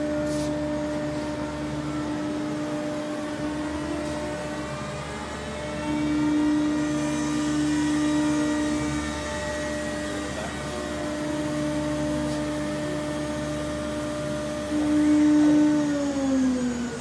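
Multicam MG204 CNC router running, with the whine of its Colombo spindle and the steady noise of its vacuum-table pump. The whine holds one pitch and swells louder twice, then falls in pitch shortly before the end as the machine winds down.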